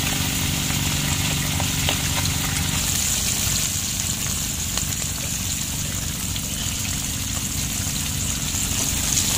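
Breaded fish frying in hot oil: a steady sizzle, with a low hum underneath that stops about three seconds in.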